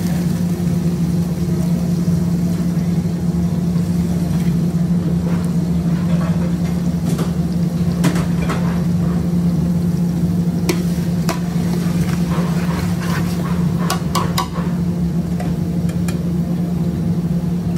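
Chopped onions dropping into oil in a large aluminium pot, then a faint sizzle and a few sharp clicks of a utensil against the pot, over a loud steady low hum.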